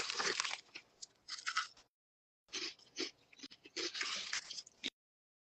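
Crunchy spicy chips being bitten and chewed close to the microphone, with crinkling of the plastic chip bag as a hand reaches in. It comes in short crackly bursts that drop out to silence twice for about half a second.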